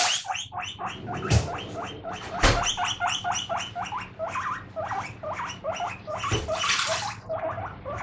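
Guinea pig wheeking ('pui pui'): a rapid series of short squeaks, about three to four a second, the call guinea pigs give when they expect food. A few brief rushes of running water and some knocks from dishwashing sound among the calls.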